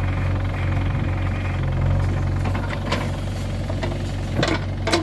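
JCB 3DX backhoe loader's diesel engine running steadily while the machine works, with a few short knocks in the second half.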